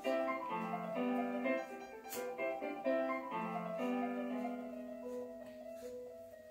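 Solo piano playing classical music. Notes are struck in a steady flow, then the playing thins out and the last notes ring and die away near the end.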